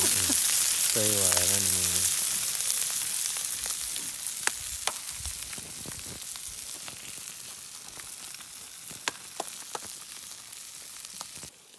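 Pork slices sizzling on a flat stone slab over a wood fire: a steady frying hiss that fades gradually, with a few sharp pops scattered through it.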